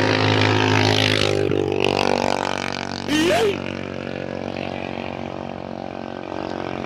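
Small quadcopter drone hovering overhead, its propellers humming steadily, mixed with a running vehicle engine. A short loud sound with a swooping pitch cuts in about three seconds in.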